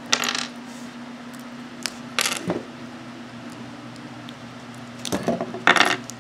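Small plastic Lego pieces clicking and rattling as they are handled and pressed onto a model, in short clusters: one at the start, one about two seconds in, and a longer one near the end.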